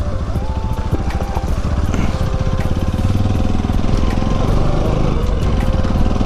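Bajaj Pulsar NS200 motorcycle's single-cylinder engine running steadily under way.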